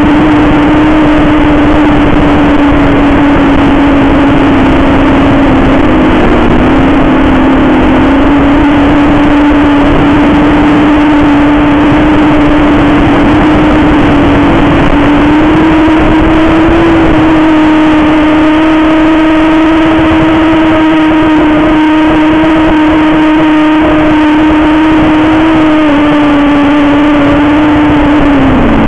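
KingKong 260 quadcopter's brushless motors and propellers running hard in flight, a loud steady buzzing whine that shifts a little in pitch with the throttle over a rough hiss, dropping in pitch near the end.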